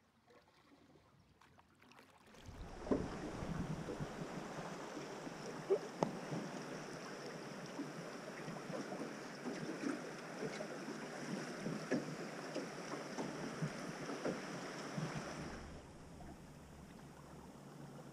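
Fast river water rushing and splashing against a drift boat's metal hull as it drifts through a riffle, with many small slaps and ticks. About two and a half seconds in it starts suddenly. Near the end it falls away to a quieter low rumble.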